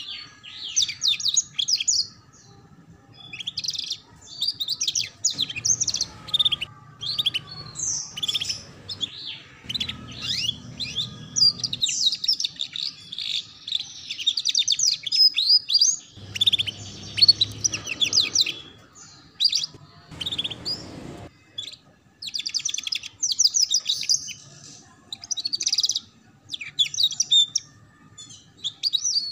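Domestic canary singing: phrases of very rapid high trills and chirps, the quick chattering 'ngeriwik' song used as a master for young canaries to learn from, broken by short pauses.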